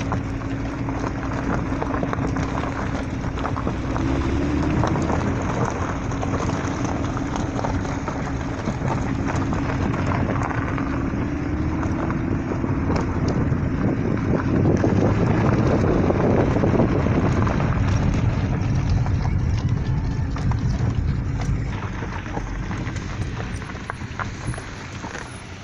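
Car driving on a rough mountain road, heard from inside: a steady engine drone that shifts pitch a little, under dense rattling and knocking as the car goes over bumps. It grows louder about two-thirds of the way through, then eases off near the end.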